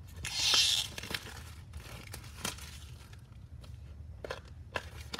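Clear plastic wrapping crinkling and tearing as it comes off a new charger's cardboard box, a loud rustle lasting about half a second near the start. Several light clicks and taps follow as the box is handled.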